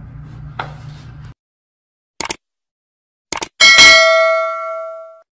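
Subscribe-button animation sound effect: two short mouse clicks about a second apart, then a bright notification-bell ding that rings out and fades over about a second and a half.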